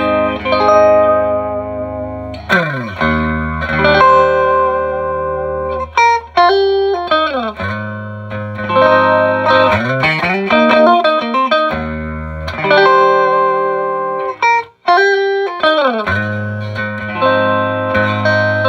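Fender Stratocaster electric guitar played through a Fender Bassman amplifier into a cone speaker whose tear has been patched with paper towel and glue. It plays chords and single notes, some gliding in pitch, with a brief break about fifteen seconds in.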